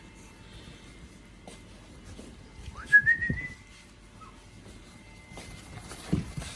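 A person whistles once, a short note that rises and then holds, about three seconds in, calling the puppies. A few soft low thumps, around the whistle and again near the end.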